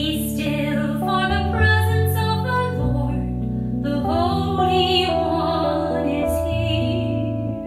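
Hymn music at the preparation of the gifts: sustained keyboard chords over a held bass line, with a voice singing a slow melody above.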